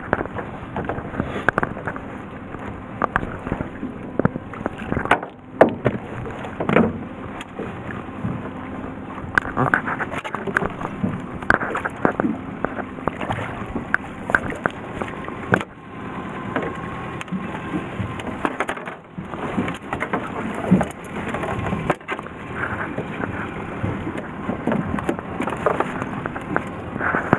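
Knocks and clatter of a fishing line and landing net being handled against a small boat's side and deck, over the steady hum of the boat's idling engine.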